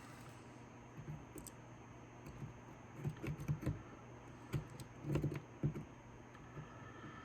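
Light, irregular clicks and taps of small metal lock parts being handled and worked loose from an old door lock cylinder, thickest in the middle of the stretch.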